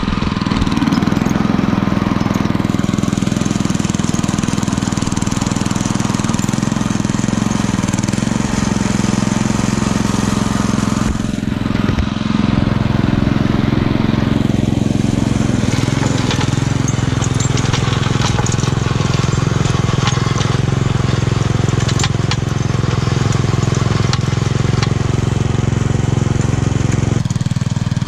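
Small engine of a homemade garden tractor running steadily under load, with scattered scraping and crunching as a rear-mounted tine breaks up packed snow.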